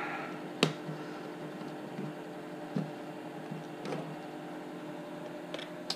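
Light clicks and taps from plywood model-hull parts being handled and positioned on a workbench: one sharp click about half a second in, then a few softer taps, over a steady low hum.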